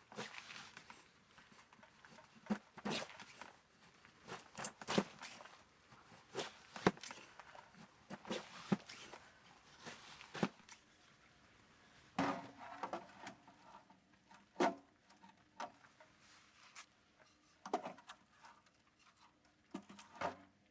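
Scattered light knocks, clicks and short rustles at irregular intervals, as of objects being handled close by, with a faint steady hum from about halfway through.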